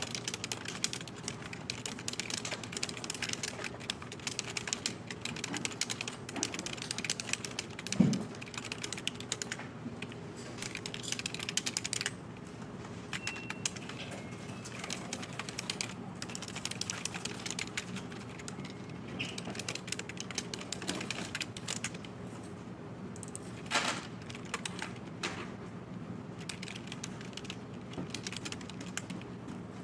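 Fast continuous typing on a computer keyboard, a dense patter of key clicks that eases off a little about halfway through, over a steady low hum. One heavier thump about eight seconds in is the loudest moment, with a smaller one near the end.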